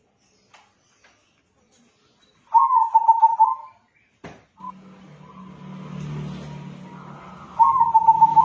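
Local crossbred zebra dove (perkutut) cooing: two short runs of rapid, trilled coos about five seconds apart. A single click near the middle, after which a low steady hum runs underneath.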